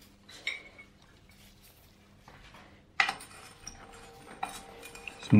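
Light metallic clinks and taps of a bottom-bracket tool and wrench on a bicycle's bottom bracket as a loose cup is unscrewed, with a sharper metal clank about three seconds in.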